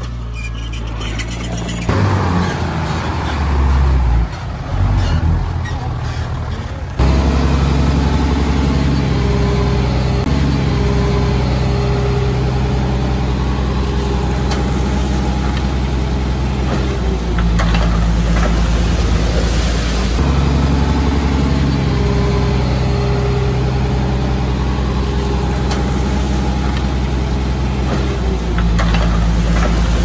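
Diesel engine of heavy earth-moving machinery running hard and steadily. Its note shifts up and down several times as the load changes, with a sudden jump in loudness about seven seconds in.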